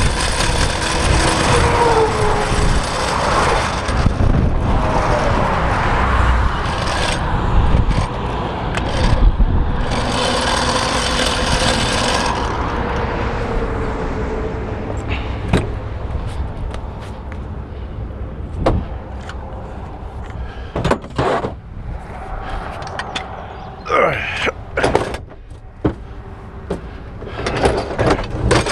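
Traffic passing on the highway, loudest for the first twelve seconds or so. After that it is quieter, with scattered knocks and clanks.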